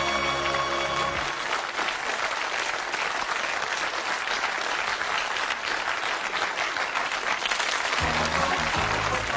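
Sitcom theme music ends about a second in, and studio audience applause follows. The theme music starts up again near the end.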